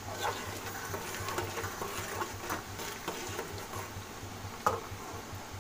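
Chopped onions frying in hot oil in a kadhai: steady sizzling with scattered crackles as a steel ladle stirs them, and one sharp clink of the ladle against the pan near the end.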